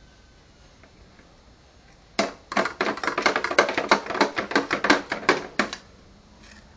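A fast run of clattering taps, about seven a second, from a small toy shovel knocking against a plastic toy dump truck and the gritty ground. It starts about two seconds in and stops about a second before the end.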